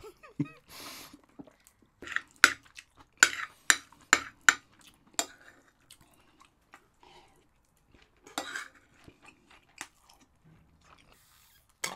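A person eating: a spoon clinks and scrapes against a plate in two bunches of sharp clicks, a few seconds apart, with chewing in between.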